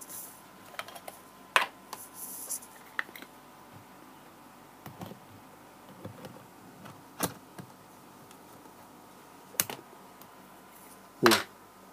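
Scattered plastic clicks and knocks from handling a Canon EOS 70D DSLR and its parts while fitting the BG-E14 battery grip. There is a short rustle about two seconds in, and the loudest knock comes near the end.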